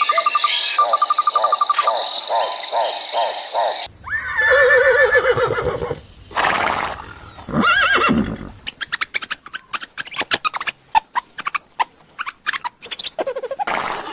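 Horse whinnying in several spliced calls, with a short breathy snort between them. From a little past halfway there is a run of irregular sharp knocks.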